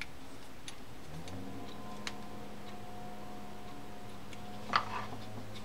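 A few scattered light metallic clicks of a small screwdriver and screw against a vintage Pflueger Akron baitcasting reel's side plate as the screw is worked in without yet catching its threads, the loudest click near the end, over a steady low hum.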